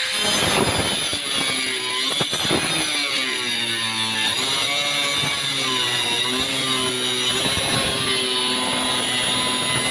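Hand-held angle grinder with a tile-cutting disc cutting through the wall of a water tank. The motor whine runs steadily over a harsh grinding hiss, its pitch dipping and recovering as the disc bites.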